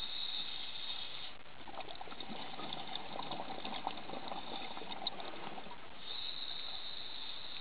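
Scuba diver breathing through a regulator underwater: a steady hiss of inhalation, then after about a second and a half a stretch of crackling, bubbling exhalation lasting about four seconds, then the inhalation hiss again near the end.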